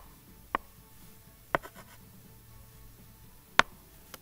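Four sharp, isolated clicks at irregular intervals, the loudest about three and a half seconds in, from computer input while handwriting and switching tools in a digital notebook, over a faint low hum.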